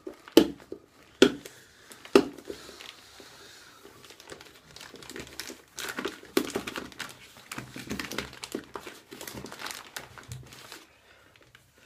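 Plastic mailer bag crinkling and rustling as it is handled and pulled open, with a few sharp crackles in the first two seconds and dense crinkling from about halfway until shortly before the end.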